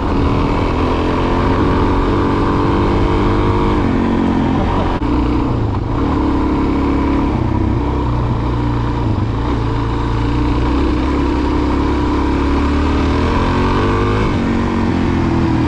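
Suzuki DR-Z400's single-cylinder four-stroke engine running under way, its pitch rising and falling with the throttle, with a brief drop about five seconds in.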